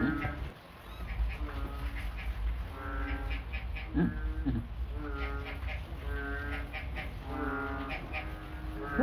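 An animal calling over and over: a steady-pitched cry about every second or two, with a shorter cry that rises in pitch about four seconds in and another near the end.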